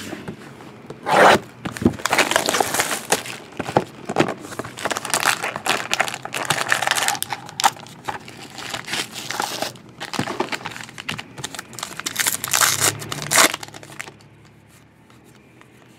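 Plastic shrink wrap and wrapper crinkling and tearing as a sealed box of trading cards is unwrapped and opened by hand, with louder rustles about a second in and again near the end. It quiets down for the last two seconds.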